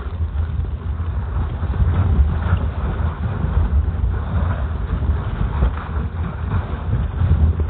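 Wind buffeting the microphone outdoors: a steady low rumble that swells and dips.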